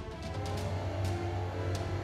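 Background music: a soundtrack with a deep, steady bass, held tones and drum or cymbal hits.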